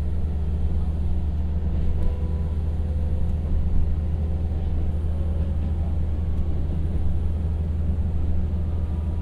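Diesel engine of a KTR700 single-car diesel railcar running steadily under power as the car pulls slowly out of the station, a deep, steady rumble heard from inside the passenger cabin.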